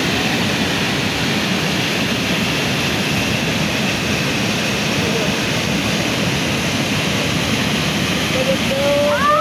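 Small waterfall rushing steadily, water pouring over a rock ledge into a pool; a person's voice begins near the end.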